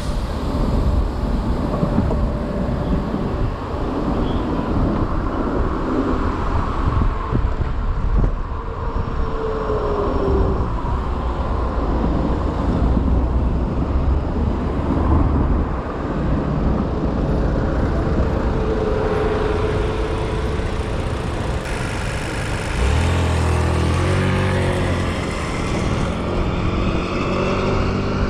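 Riding an electric moped through city traffic: a steady rumble of wind and tyre noise, with passing cars. From about 23 to 26 seconds in, a nearby vehicle's engine runs louder and lower.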